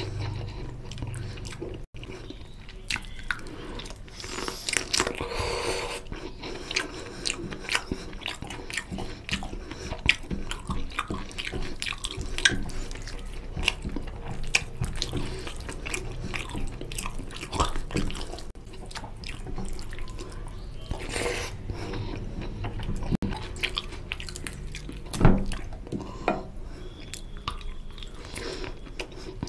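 Close-up wet, sticky squelching of fingers mixing rice into an oily mutton curry gravy on a plate, alternating with chewing and lip smacks from eating by hand.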